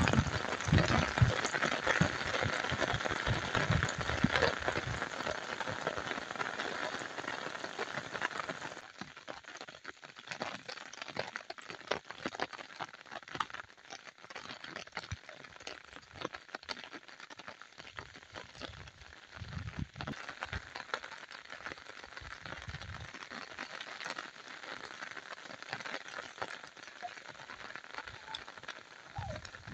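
Rain falling, heavier for the first several seconds and softer after that, with many small drop ticks.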